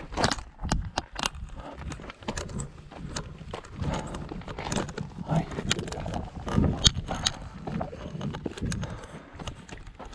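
Footsteps on a loose gravel and rock trail: shoes crunching and scuffing on stones at a walking pace, in irregular steps.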